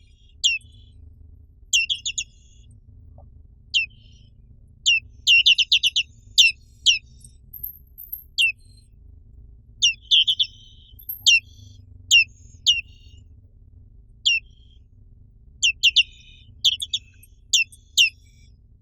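Black-capped white-eye (Zosterops atricapilla) calling: short, sharp high notes that each drop steeply in pitch, given singly and in quick runs of four to six, with a few brief buzzy trills among them.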